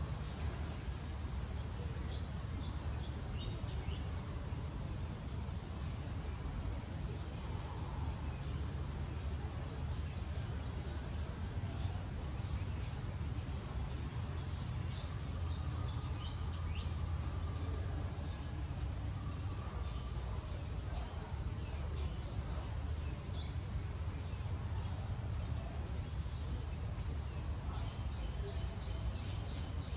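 Outdoor ambience: a steady high-pitched insect trill that pulses in stretches, with scattered short bird chirps over a constant low rumble.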